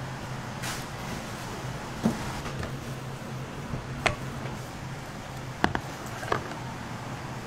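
Steady low hum of kitchen room tone, broken by a handful of short, sharp clicks and taps from utensils and containers.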